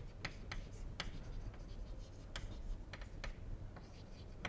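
Chalk writing on a blackboard: an irregular series of light taps and short scratches as the chalk strikes and drags across the board.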